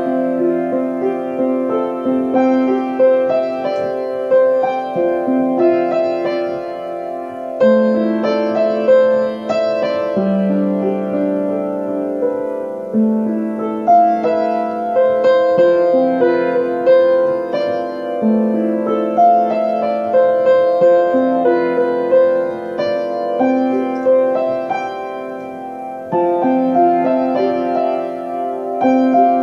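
Solo piano music: sustained chords with a melody above them, new notes struck about every one to two seconds.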